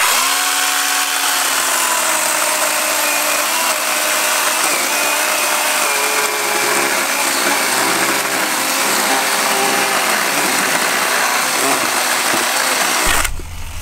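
Chainsaw running continuously, a steady whine over a harsh rasping hiss. It stops abruptly about thirteen seconds in.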